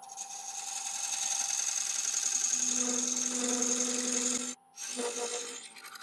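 Negative rake scraper cutting the face of a spinning laburnum bowl on a wood lathe: a steady scraping hiss with a hum under it in the middle, stopping suddenly about four and a half seconds in, then a second short pass.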